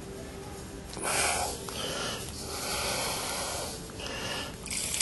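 Breathing close to the microphone: a run of hissing breaths about a second or more each, with short gaps between them, starting about a second in.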